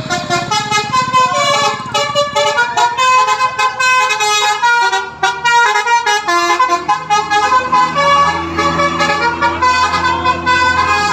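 Telolet musical horn of a Sanjaya Trans bus playing a fast melody, several horn tones sounding together and stepping from note to note without a break. The notes are short at first and become longer and held near the end.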